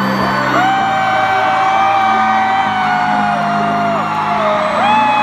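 Concert opening music over an arena sound system, a steady low chord pattern, with long held whoops from the audience whose pitch drops off as each one ends.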